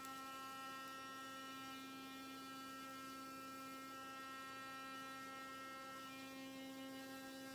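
BURST sonic electric toothbrush running with a steady, even buzz at one pitch, its bristles working along the kernels of an ear of corn.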